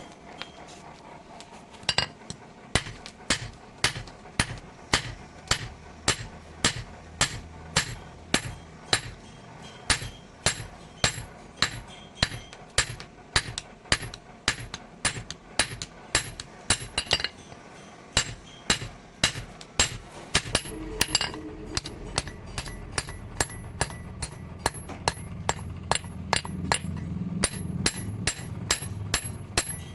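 Hand hammer forging steel from a tractor bearing on an anvil: steady, ringing metal-on-metal blows at about two a second. A low hum comes in about two-thirds of the way through.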